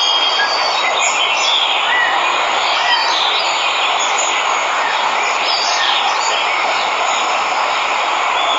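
Steady rush of a waterfall, with birds chirping and whistling over it now and then.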